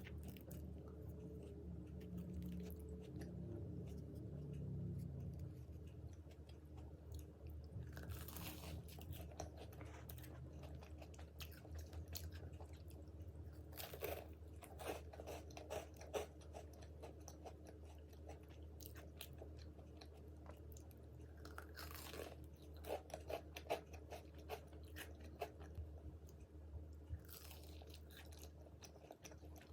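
A person biting into and chewing crunchy fried food close to the microphone. There are several bouts of crisp crunching, about 8, 14 to 16, 22 to 24 and 27 seconds in, with quieter chewing between them.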